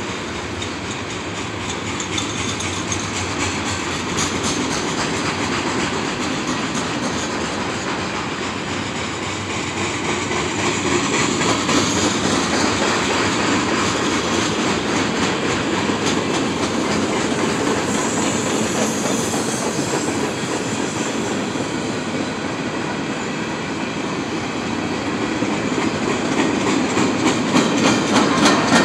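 Double-stack container freight train rolling past: steady rumble with wheels clattering over the rail joints, and a brief high-pitched squeal about two-thirds of the way through. It grows louder near the end.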